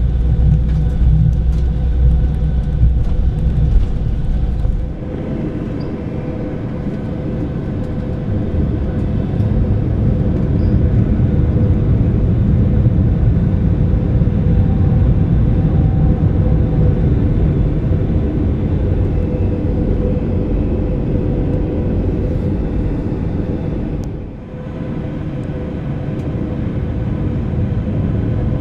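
Steady cabin rumble inside an Airbus A321-200 airliner with its engines running, heard from a passenger seat. The deep rumble drops a little about five seconds in, builds again, and dips briefly near the end.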